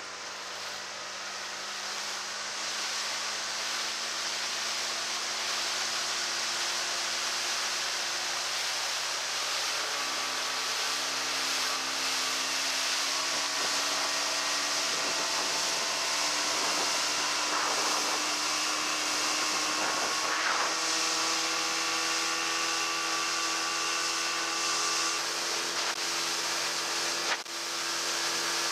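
Fishing boat's outboard motor running under way, its pitch stepping up about ten and thirteen seconds in as it speeds up, over a steady hiss of wind and rushing water.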